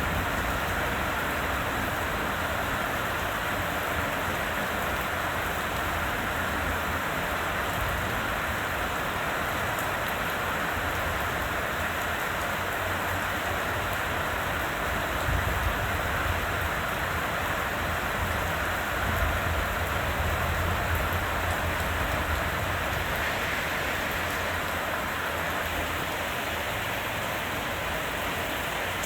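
Heavy rain pouring steadily, a dense even hiss of rain falling on surfaces, with two brief low swells about halfway through.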